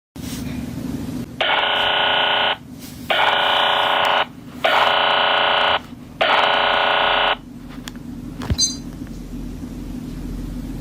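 Electronic alert buzzer sounding four long buzzes of about a second each, with short gaps between them, over a steady low hum. A single click comes near the end.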